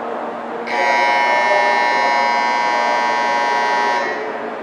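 Platform departure buzzer at a Shinkansen station, sounding one steady tone for about three seconds. It starts suddenly under a second in and cuts off sharply. It signals that the train's doors are about to close.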